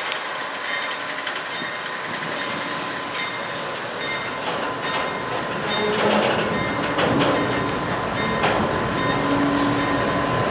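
Norfolk Southern freight train rolling slowly past: a steady rumble of cars on the rails with scattered clanks. A locomotive's engine grows louder about six seconds in.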